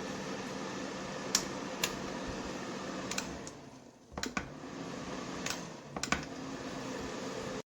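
Electric fan heater running with a steady whir and a faint hum, broken by several sharp clicks. Around the middle the running sound dies away for a moment, then starts up again.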